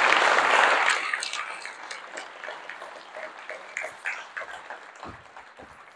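Audience applauding, loudest in the first second, then thinning to scattered claps and fading out.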